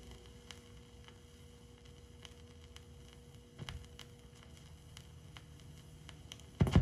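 Marantz SLT-12 linear-tracking turntable's stylus riding the silent run-out of an LP: faint surface hiss with scattered soft clicks and a faint steady tone that stops a little past halfway. Near the end comes a loud thunk from the turntable.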